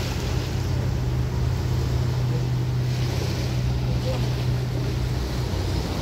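A boat's engine running with a steady low drone, over wind and the wash of water.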